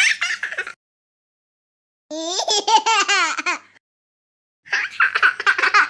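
Three bouts of high-pitched laughter, the middle one a run of rapid pulses, with complete silence between them.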